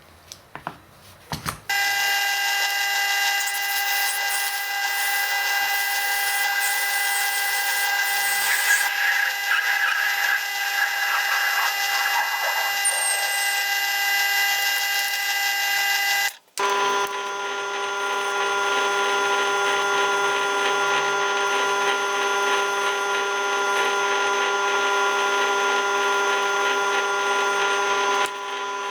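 A handheld electric power tool running at a steady, high pitch in two long runs, with a brief stop about halfway and a few clicks just before it starts.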